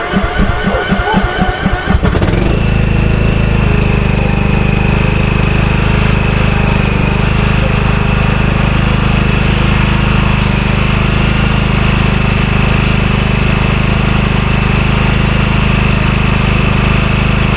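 Riding lawn mower's engine being cranked by the electric starter on jump-box power, since its battery is bad. It turns over at about four strokes a second for about two seconds, then catches and runs steadily, with a steady high whine over the engine note.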